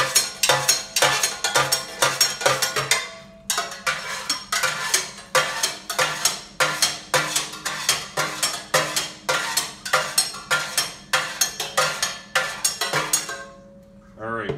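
Metal spoon swiped repeatedly down the bottom of an empty stainless steel fryer pot, scraping and clanking at about two to three strokes a second, to push leftover debris out the open drain. The strokes pause briefly after about three seconds and stop shortly before the end, over a steady low hum.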